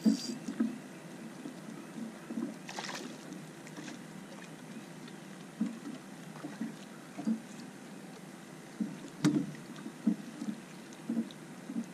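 Water lapping against a boat hull: irregular low slaps every half second to a second, with a sharper knock about nine seconds in.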